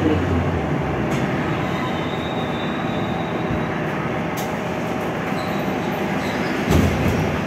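Moscow metro train running, heard from inside the car: a steady rumble of wheels and running gear on the rails, with a faint high wheel squeal a couple of seconds in. A few sharp knocks, the loudest near the end with a low thud, like rail joints.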